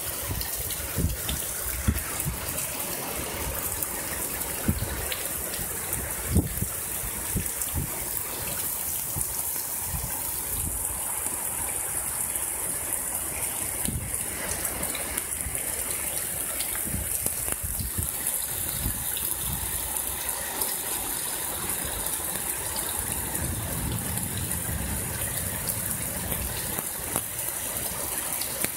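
Heavy rain pouring down in a storm, a steady hiss of rainfall and running water. A few short low thumps stand out in the first several seconds.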